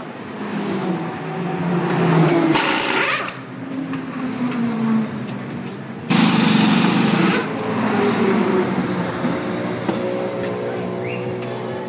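Pneumatic wheel guns rattling in two bursts, the first about two and a half seconds in and the second, longer, about six seconds in, during a race car's wheel change. Race engines sound underneath with falling notes.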